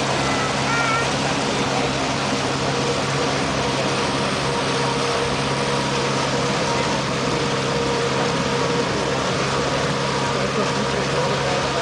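Honda 115 four-stroke outboard motor running steadily with the boat under way, a constant hum over the rush of water in the wake.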